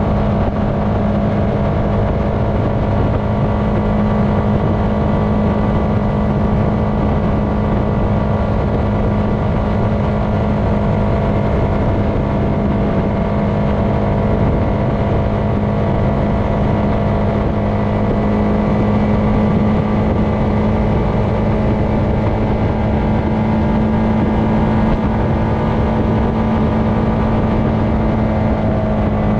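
Honda FourTrax Foreman ATV's single-cylinder engine running steadily at cruising speed as the quad rolls along a dirt road, a constant drone with no change in pitch.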